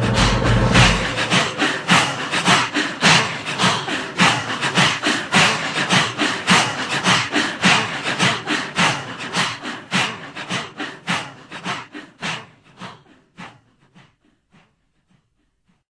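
Rhythmic percussion in the soundtrack music, about three sharp strokes a second, fading out over the last few seconds and stopping near the end.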